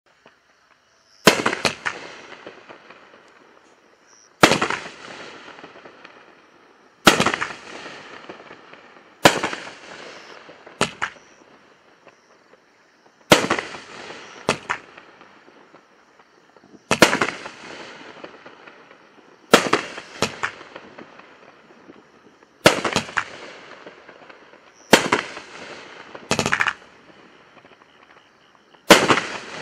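A 12-shot aerial fireworks cake firing shot after shot: about a dozen sharp bangs, one every two to three seconds and some in quick pairs, each trailing off into a fading crackle.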